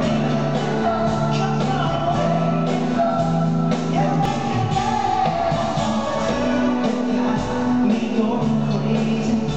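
A live band playing an upbeat pop song while a male singer sings into a handheld microphone, over a bass line that steps between held notes.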